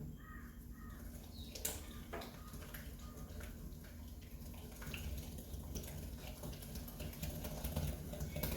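An egg being beaten into creamed butter and sugar in a mixing bowl: faint, quick clicking and scraping of the beating strokes, thickest in the second half.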